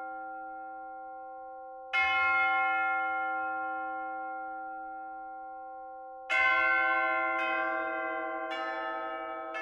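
Bells ringing: one strike about two seconds in that rings on and fades slowly, then three more strikes about a second apart in the second half, the tones building up and overlapping.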